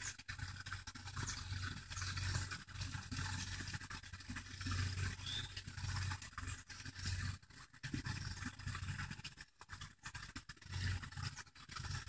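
Uneven low rumbling noise on an outdoor microphone, swelling and fading every second or so under a steady hiss.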